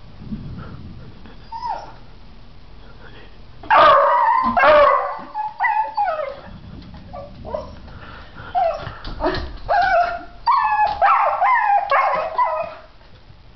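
Dogs whining and yipping in excited, high-pitched cries that fall in pitch, starting about four seconds in and coming in bursts until near the end.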